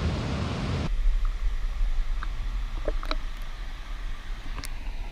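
Rushing stream water, which cuts off abruptly about a second in to a quieter deep rumble with a few light clicks and knocks.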